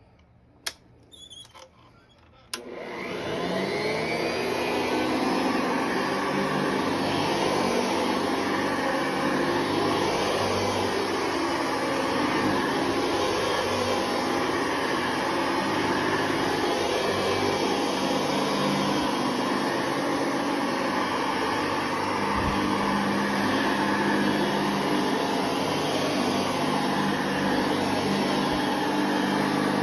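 Hoover Model 61 upright vacuum cleaner switched on with a click about two and a half seconds in, its motor spinning up with a rising whine and then running steadily. A sharp click and some small handling noises come before it starts.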